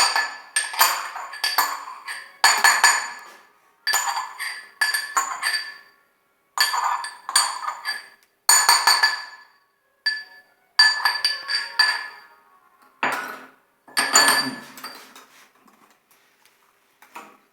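Fresh ginger being pounded with a pestle in a mortar: groups of quick clinking strikes that ring, with short pauses between groups, thinning out near the end.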